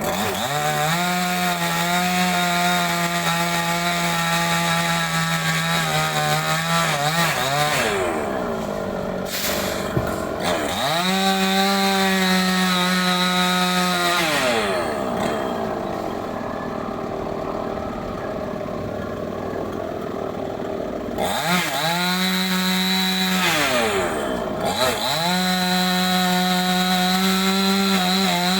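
Chainsaw cutting wood, revved to full throttle and held there four times for several seconds each, easing back toward idle in between.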